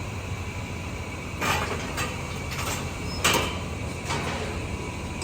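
Cattle hoof-trimming chute machinery: a steady low hum with about five short, noisy mechanical bursts, the loudest a little past the middle.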